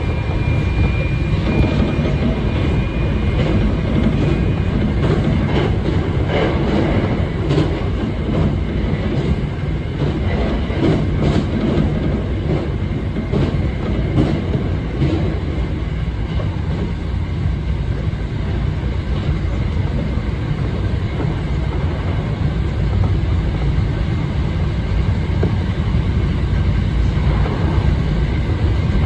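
Hankyu electric commuter train running along the line, heard from inside the front car: a steady low rumble of wheels on rail, with a run of sharp clicks from the wheels through the middle stretch. A faint high whine sounds in the first few seconds.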